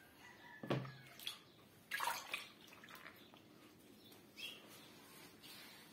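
A hand dipping into a bucket of wet black soil and cow-dung slurry and smearing it across a floor: a few faint, scattered wet splashes and slaps.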